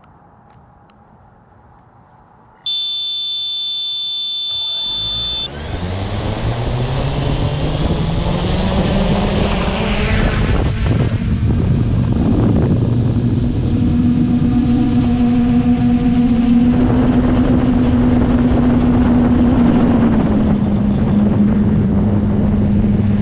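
A steady tone sounds for about three seconds. Then a drone's motors spin up in a rising whine and it lifts off, its propellers settling into a loud, steady buzzing hum.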